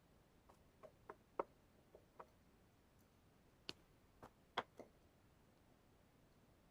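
Irregular light clicks and taps, about ten spread over several seconds, from small tools and laptop parts being handled during a repair.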